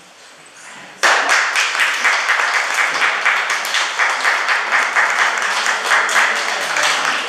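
A group of young children applauding, many hands clapping at once; it starts suddenly about a second in and keeps up steadily.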